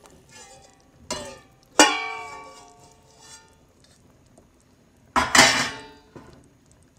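Metal clanking on a stainless steel cooking pot: two ringing knocks about one and two seconds in, then a longer rattling clatter a little after five seconds.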